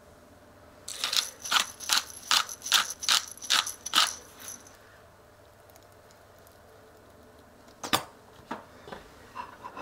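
Stainless steel pepper grinder twisted back and forth, grinding black pepper: about ten gritty ratcheting strokes, a bit over two a second. A single sharp click follows about eight seconds in.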